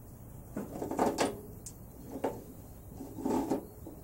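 Hand-held flange folding tool squeezed along the edge of an E-Type Jaguar door skin, the sheet metal creaking and clicking as the flange is folded down over the door frame. Three squeezes, about a second apart.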